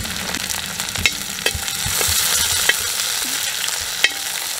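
Onions, shallots, ginger, garlic and green chillies sizzling in hot oil in a pan as they are stirred, with a steady hiss and about five sharp knocks of the spoon against the pan.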